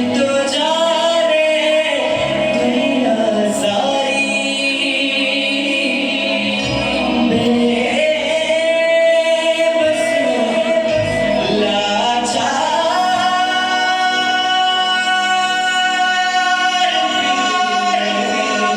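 A song: a sung melody with long held, wavering notes over instrumental accompaniment.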